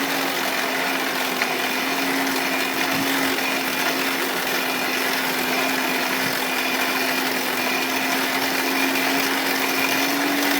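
Electric air blower feeding a blacksmith's forge fire, running steadily: an even rush of air with a constant motor hum.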